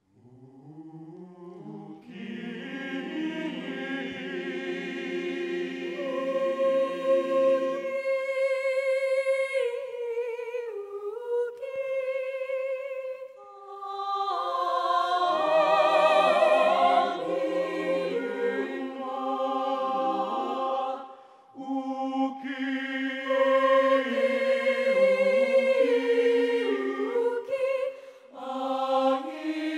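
A large choir singing in harmony. It enters after a moment of silence with long held chords, then moves into a flowing melody with vibrato, pausing briefly between phrases.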